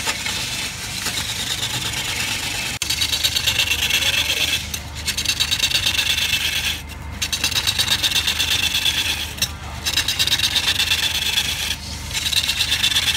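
A turning tool cutting into a spinning log on a wood lathe: a loud scraping with a fast, regular pulse. It stops briefly several times as the tool comes off the wood.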